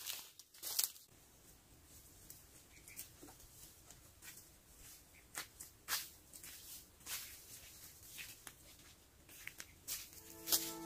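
Faint, irregular crackling and rustling of dry leaves and twigs. Soft music comes in near the end.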